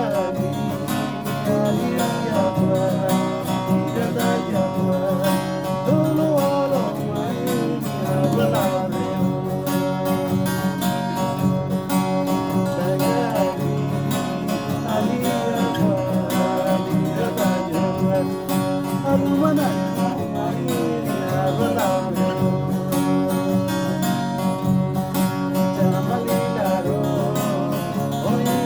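String band music: acoustic guitars strummed in a steady, even rhythm, with a melody line above them that slides up and down in pitch.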